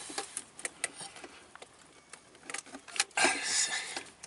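Light metallic clicks and taps as hands work the metal battery hold-down bracket and terminal clamp on a Smart car battery, then a louder scraping rattle for most of a second about three seconds in as the bracket is shifted against the battery.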